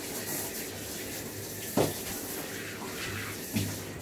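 Water from a handheld grooming-tub sprayer running steadily into a dog's wet coat as conditioner is rinsed out. A sharp knock sounds a little under two seconds in, and a second, softer one near the end.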